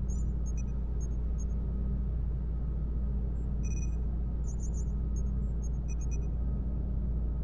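Science-fiction space-station control-room ambience: a steady deep rumble and hum, with short high electronic beeps and chirps scattered throughout.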